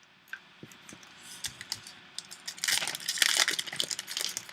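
Packaging crinkling and tearing as a trading card pack is opened: scattered light clicks at first, then dense crackling from a little past halfway.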